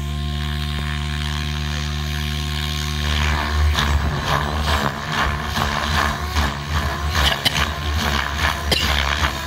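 Radio-controlled 3D helicopter's rotor and motor running steady, then from about three seconds in the blades swooshing in quick, uneven pulses as the helicopter rocks back and forth in a tic-toc.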